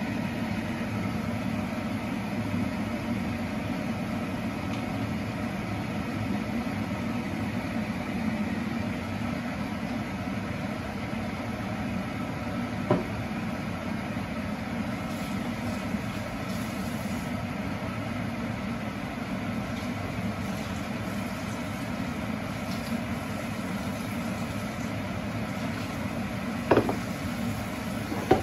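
Steady mechanical hum with a light hiss in a kitchen while a vegetable and chicken-liver stir-fry cooks on the stove. Two short clicks come through, one about halfway and one near the end.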